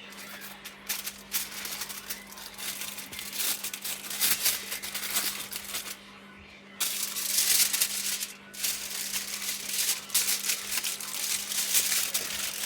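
Aluminium foil crinkling and rustling as it is torn and pressed over a roasting dish of chicken, with a short lull about halfway through, then louder crumpling.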